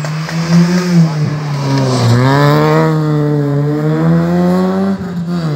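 A rally car's engine running hard on the stage: the revs dip about two seconds in, climb steadily, then cut briefly and drop near the end before picking up again.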